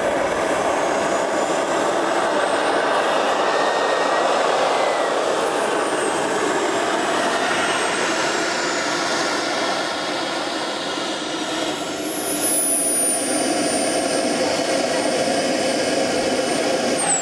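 Radio-controlled model F-16 jet's engine running on the ground: a steady, loud rushing with a thin high whine that climbs and later falls in pitch.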